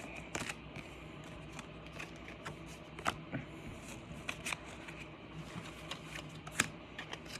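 Pokémon trading cards being handled and flipped through by hand: soft, irregular clicks and rustles of card against card.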